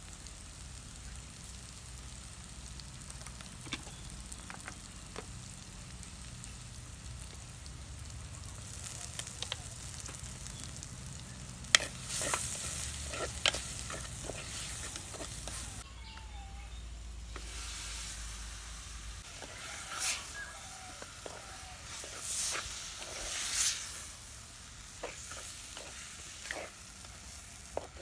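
Onion, green chillies and spices frying in oil in an earthenware pot, sizzling, with a spoon stirring and clinking against the pot. The sizzle flares up in several louder hissing bursts partway through.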